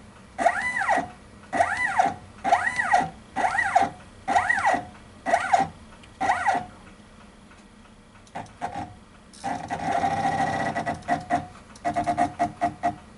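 A motor on a Taig mill making a run of short moves, each a whine that rises and falls in pitch, about one a second for the first six seconds. Around ten seconds in comes a steadier whine, then a quick series of clicks near the end.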